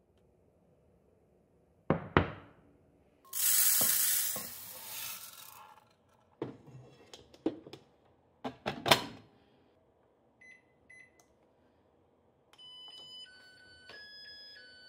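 Kitchen handling at an IH rice cooker: two knocks, a brief rushing noise, then several clicks and knocks as the inner pot of washed rice is set in and the lid shut. Two short beeps of its buttons follow, then a chiming electronic tune begins.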